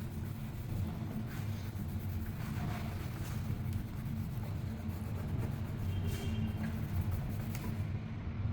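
Cloth rubbing and wiping over the parts of a rice cooker, in faint scrapes, over a steady low hum.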